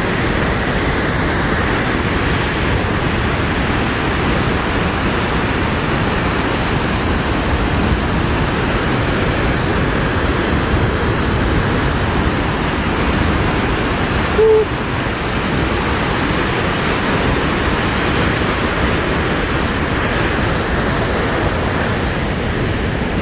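Elk Falls waterfall: a steady, loud rush of falling water. A brief single low tone sounds once, about fourteen seconds in.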